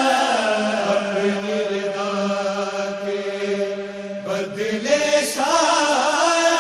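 A single voice chanting an Urdu noha, a Muharram lament. It holds one long, steady note for about four seconds, then starts a new phrase that moves up and down in pitch.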